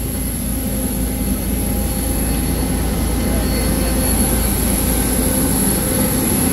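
Jet airliner engine noise: a steady low rumble with a thin high whine above it, growing slightly louder.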